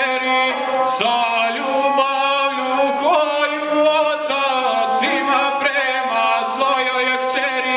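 A male guslar singing a South Slavic epic song in the traditional chanted style, accompanying himself on the gusle, a single-string bowed folk fiddle, whose scraping line follows the voice.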